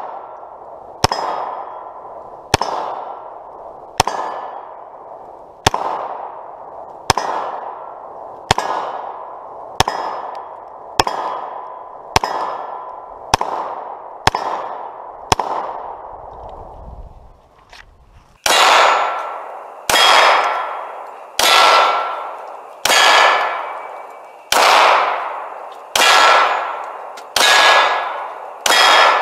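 Glock 23 .40 S&W pistol firing single shots at a slow, steady pace, about one every second and a half, each followed by the ringing of a hit steel target. After a pause of about three seconds past the middle, the shots resume louder and slightly faster.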